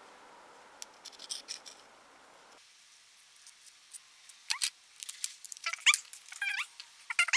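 Metal spatula scraping and tapping against a small glass dish, with a run of sharp clicks and short rising squeaks from about halfway through.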